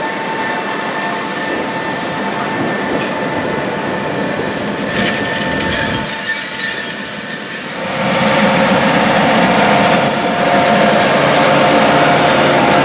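A large John Deere tractor running under load while pulling a corn planter through the field, with a steady mechanical whine over the engine. The sound dips briefly and then gets louder, with a different whine, about eight seconds in.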